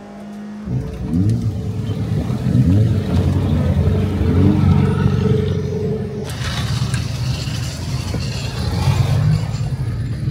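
Mazda MX-5 NB race car's four-cylinder engine driven hard on the circuit, the revs rising and falling with gear changes. About six seconds in, a louder rush of wind and tyre noise joins it.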